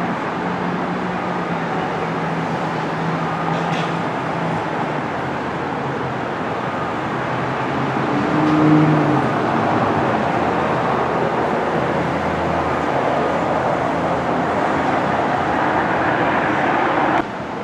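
Steady outdoor vehicle noise with an engine hum, swelling briefly louder about nine seconds in and dropping off suddenly near the end.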